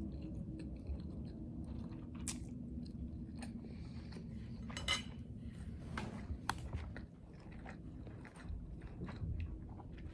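A person chewing a mouthful of food close to the microphone, with wet mouth clicks and a few louder crunchy bites at irregular moments.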